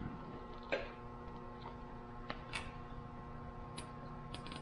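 A few light clicks and knocks of hands working a fuel injector and its plastic connector on the engine's fuel rail, turning it in its seat; the sharpest click comes under a second in. A steady low hum runs underneath.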